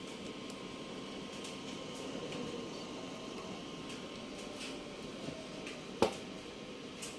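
Faint steady room hum and hiss with a few light scattered clicks, and one sharp click about six seconds in.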